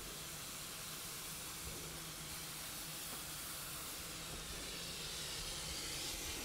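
Steam locomotive at a standstill, giving off a steady soft hiss of steam.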